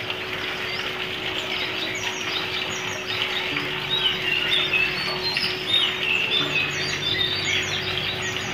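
Steady rain falling, with runoff pouring off a roof edge into a bucket. Many short, high chirps of small birds sound over it, busier after about three seconds.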